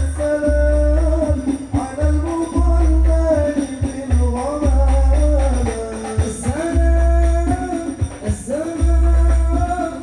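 Sung music played loud through a large PA system, an 8x8 line array with twenty subwoofers, under sound check. A sung melody runs over long, heavy sub-bass notes that come roughly every one and a half to two seconds.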